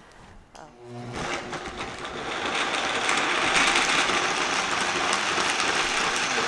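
Vitamix blender starting up about a second in and rising in speed and loudness, then running steadily as it purees boiled green tomatoes, onion and jalapeños into salsa verde.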